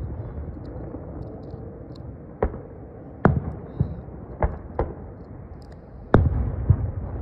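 Aerial firework shells bursting: about five sharp bangs at uneven intervals, the first about two and a half seconds in, with a low rumble after the loudest one near the end.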